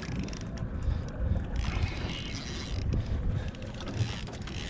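Spinning fishing reel being worked on light tackle, its gears and drag clicking, over dull low bumps and rumble from handling and wind on the microphone.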